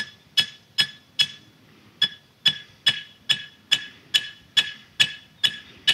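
Hammer blows driving a copper earthing rod into the ground, about two to three strikes a second, each with a short metallic ring from the rod; the hammering pauses briefly a little over a second in, then picks up again.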